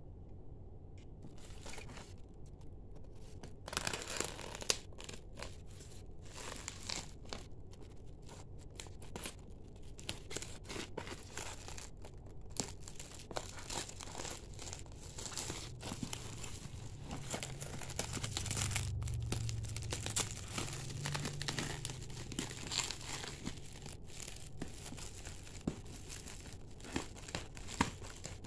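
Clear plastic wrapping and bubble wrap crinkling and tearing as it is cut with scissors and pulled open by hand. The sound is a dense run of sharp crackles, sparse at first and thick from a few seconds in.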